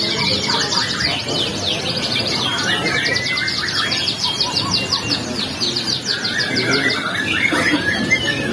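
Several caged canaries singing at once: fast rolling trills of rapidly repeated high notes, with other chirping and warbling notes lower down.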